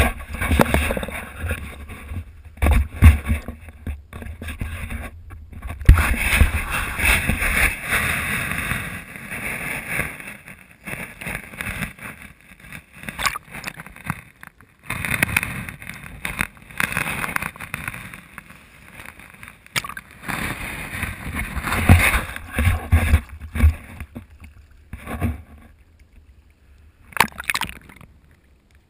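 Shallow shoreline water washing over and around a waterproof action camera: irregular sloshing and splashing with low thumps against the housing, dying away near the end.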